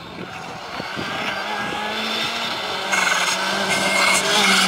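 Skoda Fabia R5 rally car approaching at speed, its turbocharged four-cylinder engine growing steadily louder, then much louder about three seconds in as it reaches the bend.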